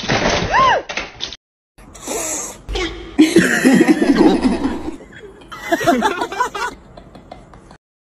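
People laughing and talking over short home-video clips, in two bursts broken by a brief silence.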